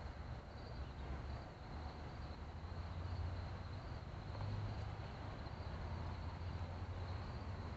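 Crickets chirring steadily in a high, unbroken band, over a low steady rumble.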